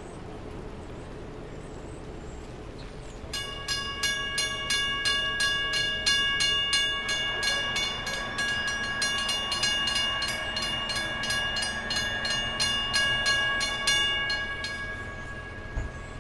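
Two Western Cullen Hayes Gen. 2 mechanical crossing bells start up about three seconds in as the crossing activates, a rapid, even clanging of hammer strikes. They ring for about eleven seconds and cut off near the end, once the gates are down, leaving the ring to fade out.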